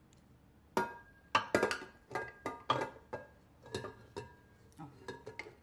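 A stainless steel stand-mixer bowl clinking and knocking as it is set onto the mixer and the ingredients are poured in: about a dozen sharp metallic knocks starting about a second in, each ringing briefly.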